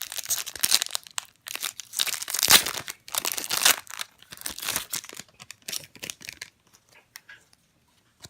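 Wrapper of a Topps Series 2 baseball card pack being torn open and crinkled, loudest about two to four seconds in, then dying down to a few faint crackles.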